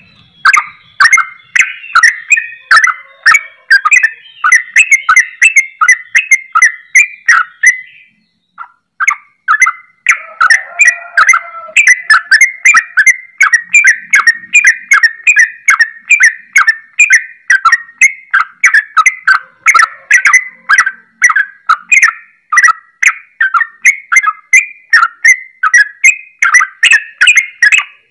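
Yellow-vented bulbul (trucukan) singing a rapid, continuous chattering song of short whistled notes, several a second, in the style likened to the straw-headed bulbul (cucak rowo). The song breaks off for about two seconds around eight seconds in, then resumes.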